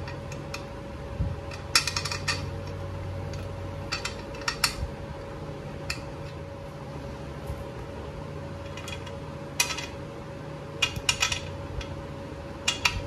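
Light metallic clinks and taps, in about six short clusters, as a Harley-Davidson Shovelhead's metal primary cover is handled while a gasket is pressed onto its rim. A steady hum runs underneath.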